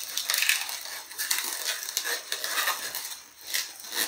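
Inflated latex modelling balloons rubbing against each other in the hands as a red balloon bubble is twisted and tied into the sword. The sound is a scratchy rubbing broken by several sharp ticks.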